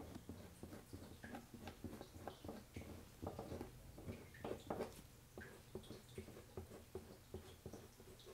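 Faint, irregular scrapes and soft ticks of a flat painting knife spreading cold wax and oil paint across the painting surface.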